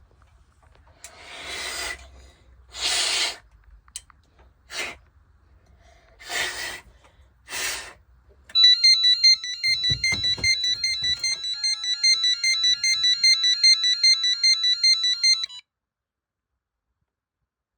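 Six short hissing bursts, then an electronic alarm sounder plays a fast-stepping, warbling multi-tone pattern for about seven seconds and cuts off suddenly.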